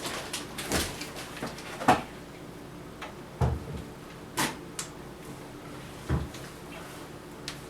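Scattered knocks and thumps, about six over several seconds with the loudest about two seconds in, as a heavy benchtop midi lathe is manhandled and set onto a table.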